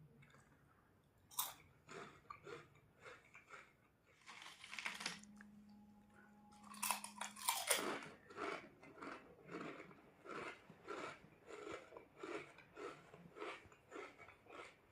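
Crunchy chips being bitten and chewed close to the microphone: a few scattered crunches, a louder crackling bite about seven seconds in, then steady crunching chews about twice a second.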